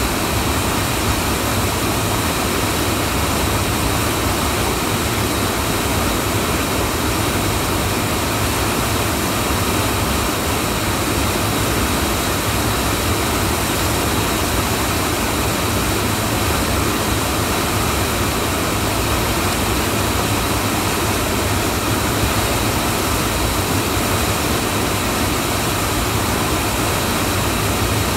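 Steady, unbroken rushing of a river's whitewater standing wave at high flow, loud and unchanging throughout.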